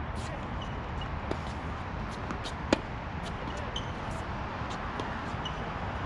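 Tennis ball struck by racquets during a rally: a faint pop about a second in and one sharp, loud hit near the middle, over a steady background hiss.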